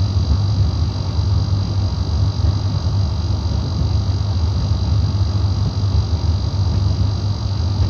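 Gorenje D85F65T tumble dryer giving off a steady, loud low hum, with a faint thin high whine above it. The dryer is brand new, and the owner records the hum as a fault.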